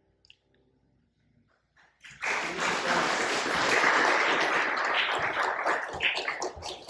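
A loud, even rushing noise starts suddenly about two seconds in and continues steadily, with a voice breaking in near the end.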